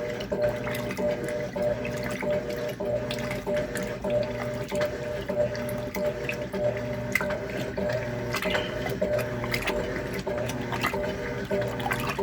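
Electrolux LTC10 top-loading washing machine agitating a full load: water sloshing and splashing over a steady motor hum, with a lower hum that keeps cutting in and out as the agitator reverses.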